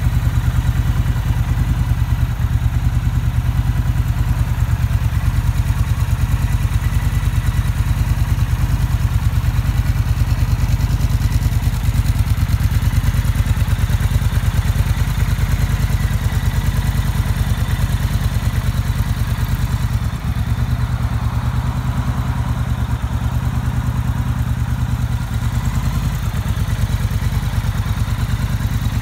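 Triumph Bonneville T120's 1200 cc parallel-twin engine idling steadily through a de-catted TEC full exhaust system.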